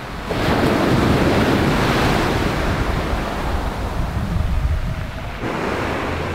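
Sea surf breaking and washing up the beach, with wind rumbling on the microphone. The wash swells up about a third of a second in and shifts near the end.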